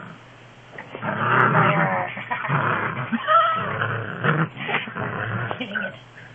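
Dog play-growling in rough bursts, starting about a second in and easing off near the end, with a short higher-pitched note in the middle.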